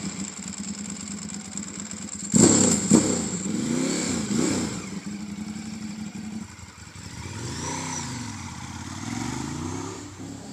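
Ducati sportbike's V-twin engine revved sharply several times at a standstill a couple of seconds in, then pulling away: the engine note rises and falls through the gears and fades as the bike rides off.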